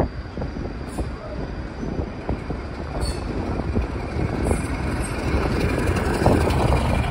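Diesel-hauled passenger train running beneath: a steady low rumble of rolling stock with scattered clicks of wheels over rail joints, growing gradually louder toward the end.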